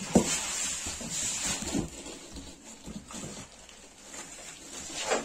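Plastic wrapping rustling and styrofoam packing scraping as a heavy amplifier is lifted out of its cardboard box and set down, with a sharp knock about a quarter-second in and a few short bumps after.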